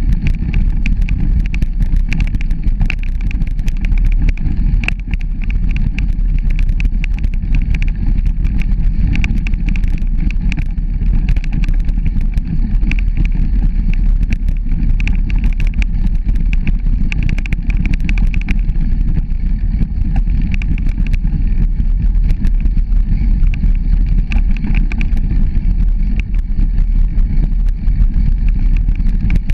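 Bicycle rolling along a dirt forest path strewn with fallen leaves: a steady low rumble from the tyres and riding, with many small clicks and rattles from the bumps.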